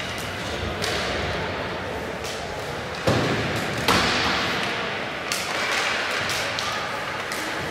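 Ice hockey play in a rink: sticks and puck knocking and hits against the boards over steady arena noise, with two sharp knocks about three and four seconds in.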